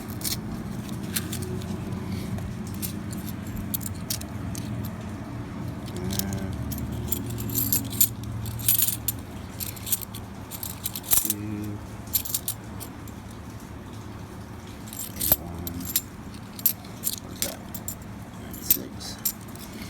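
Half dollar coins clinking against one another as they are handled and looked through from an opened roll, in irregular sharp chinks that grow busier after about seven seconds. A steady low hum runs underneath.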